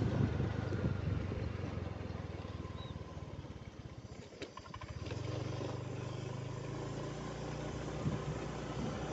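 Motorcycle engine running as it is ridden along, a steady low hum that eases off about four seconds in and picks up again a second later.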